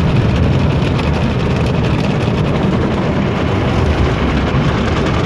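Automatic car wash spraying water and foam over a car, heard from inside the closed cabin as a steady, loud, low rush of noise.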